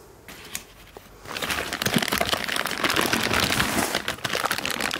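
A few light clicks, then from about a second in, dense crinkling of clear plastic bags wrapped around the turbochargers as they are handled in their box.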